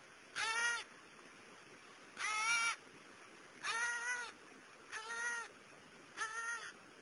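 New Caledonian crow calling repeatedly: five short, clear calls about every one and a half seconds, each about half a second long and rising and falling slightly in pitch.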